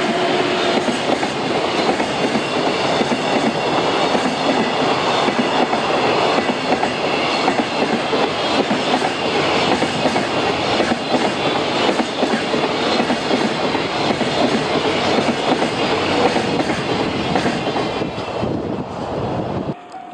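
Freight train of container flatcars rolling past close by: a steady rush of wheel and rail noise with constant clickety-clack over the rail joints. It drops away suddenly near the end.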